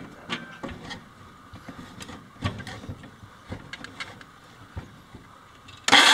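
Light knocks and scrapes as a DeWalt cordless circular saw is positioned on plywood floorboards. Near the end, the saw starts abruptly and runs loud.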